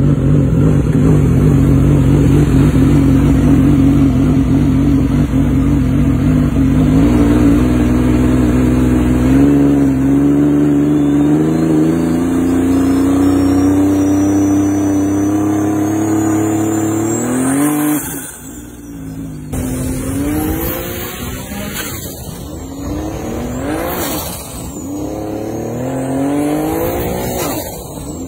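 Turbocharged Rotax jet ski engine pulling hard, its pitch climbing steadily while a thin turbo whistle rises high above it. About halfway through it breaks into a run of quick rev-ups and drops, about four, each with the turbo whistle spooling up and falling away.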